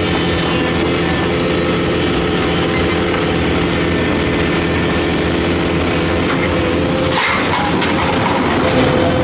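Heavy diesel engine of a hydraulic excavator running steadily under load, with a brief burst of noise about seven seconds in.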